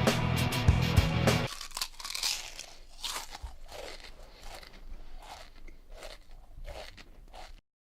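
Rock music with guitar for about the first second and a half, then it stops and a string of irregular crunching, chewing sounds follows, growing fainter until they cut off near the end.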